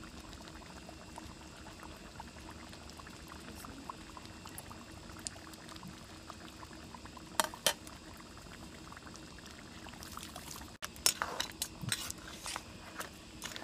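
Crab curry bubbling faintly at a simmer in a metal pan, with a couple of clicks about seven and a half seconds in. From about eleven seconds a metal ladle stirs the curry, clinking and scraping against the pan.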